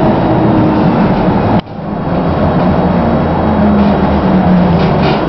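Running noise inside a KVB K4000 tram moving slowly. The electric drive's whine falls in pitch as the tram slows, then settles into a steady low hum, with an abrupt drop in level about a second and a half in.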